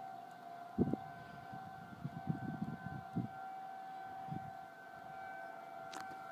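Outdoor civil defense warning siren sounding a steady tone at one pitch during a routine test. A few low thumps and rumbles come through under it, the sharpest about a second in.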